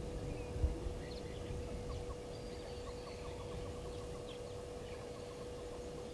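Faint outdoor ambience: a steady low hum and a low rumble, with scattered faint chirps and ticks. A dull thump about half a second in is the loudest sound.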